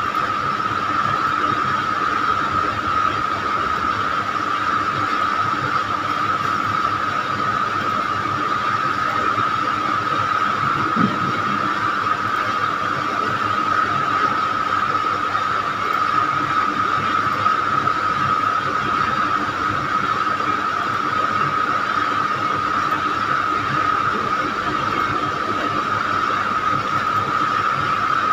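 Steady background hiss with a constant high-pitched whine running under it, unchanging and without other events.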